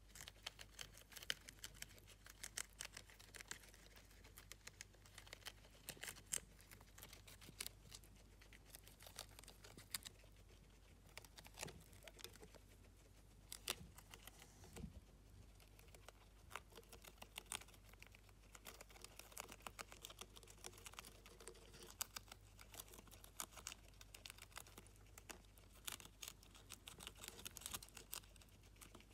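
Two guinea pigs biting, tearing and chewing crisp lettuce leaves: rapid, irregular crunching clicks.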